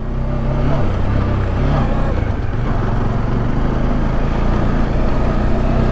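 Motorcycle engine running steadily while riding over a rough gravel dirt road, with a slight change in engine pitch about one and a half seconds in, under a constant haze of tyre and wind noise.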